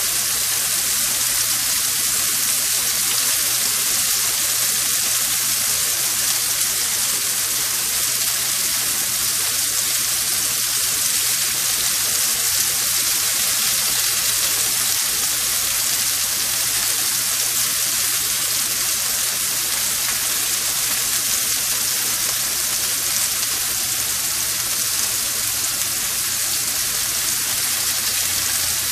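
Spiced shrimp pan-frying in a nonstick skillet, a steady sizzling hiss.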